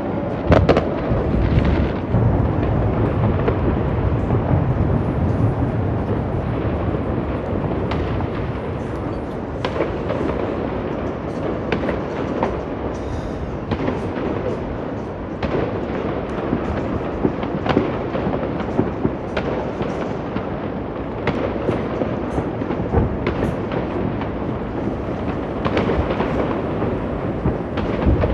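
Fireworks going off without a break: many sharp bangs and crackles over a constant low rumble of distant bursts.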